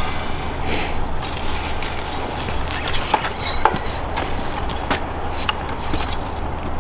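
Steady low wind rumble on the microphone, with a few short sharp clicks and knocks about three to five seconds in.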